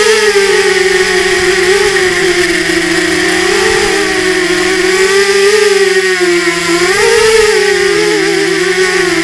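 Brushless motors and propellers of an RMRC Mudskipper 250 FPV quadcopter, heard from its onboard camera: a steady whine whose pitch wavers up and down with the throttle while it hovers, rising about seven seconds in as it flies off.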